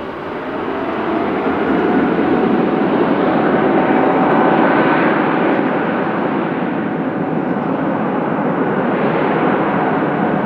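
Boeing 777F freighter's twin GE90 jet engines at takeoff power, a loud rushing roar that swells over the first couple of seconds, peaks about halfway through and then holds steady.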